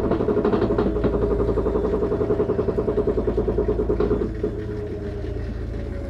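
LG front-load washer's drain pump growling with a fast, even pulsing vibration, cutting off about four seconds in. The growl without draining is the sign of a failing drain pump, which the technician takes it to be.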